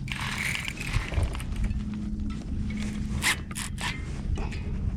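Fishing reel's drag giving line to a large hooked fish that is running hard and threatening to strip the spool, with scraping and handling noise and a few sharp clicks past the middle.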